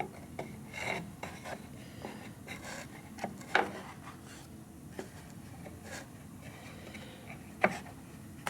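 Small pine pieces being handled and fitted into a wooden frame: wood rubbing and sliding on wood, with scattered light knocks, the sharpest about three and a half seconds in and near the end.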